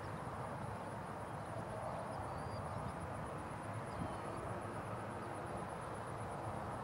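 Steady high-pitched insect chorus over a low, even background rumble, with a few faint short bird chirps.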